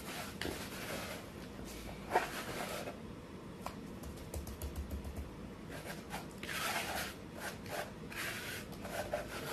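Hands scooping and scraping wet plaster mix out of a plastic bucket and pressing it into foil pans, a run of rubbing scrapes with a sharp knock about two seconds in.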